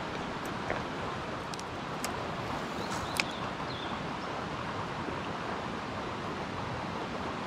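Steady outdoor rushing noise with a few light clicks about two to three seconds in and a short faint high chirp.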